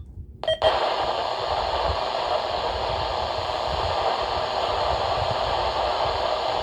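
A click about half a second in, then steady radio static hissing as the radios switch on after the power comes back.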